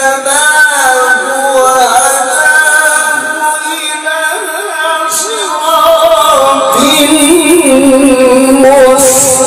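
A male qari recites the Quran in the melodic tilawah style through a microphone, holding long notes with wavering, ornamented turns. About seven seconds in, the voice drops into a lower register.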